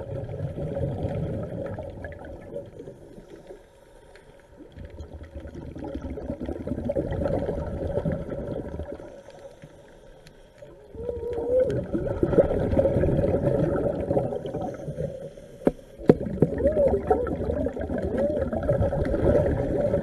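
A diver breathing underwater through a regulator: four long stretches of bubbling exhaust, each a few seconds long, with short quieter gaps between them for the inhale. A couple of sharp knocks come about three-quarters of the way through.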